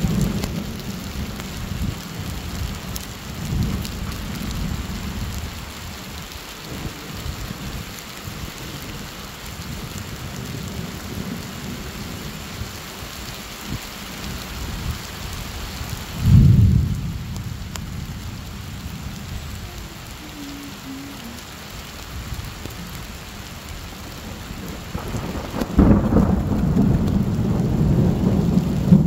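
Heavy rain pouring steadily, with low rumbles of thunder: a short loud one about halfway through and a longer one building near the end.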